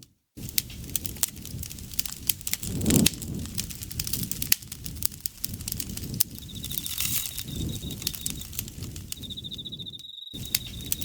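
Wood fire crackling and popping over the low rumble of its flames. A high-pitched insect trill joins about six seconds in, drops out briefly, then resumes. The sound cuts out completely for a moment at the start and again near the end.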